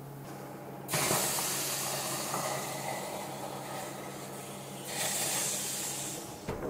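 Water poured into the hot steam tray of a Häussler Primus electric stone oven flashing into steam with a loud hiss, to steam the oven as the loaves start baking. The hiss starts suddenly about a second in, eases off, then surges again near the end before stopping.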